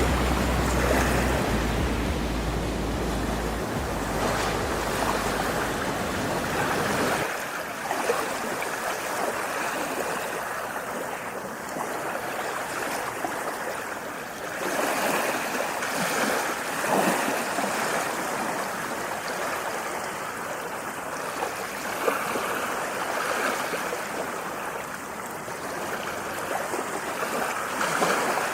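Ocean waves washing in: a steady rush of water noise that swells and eases softly. A low rumble underneath stops abruptly about seven seconds in.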